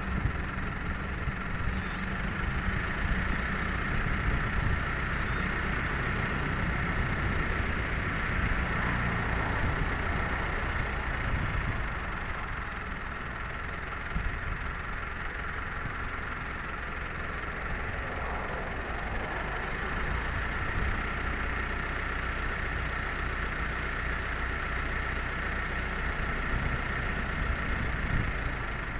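An engine running steadily at idle with a low hum, over a constant higher hiss.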